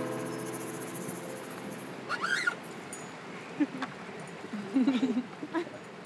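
The last notes of an acoustic guitar and xylophone ring out and fade away during the first second. After that, a few short, soft vocal sounds break the quiet: one bends up and down in pitch about two seconds in, and a short cluster comes near the end.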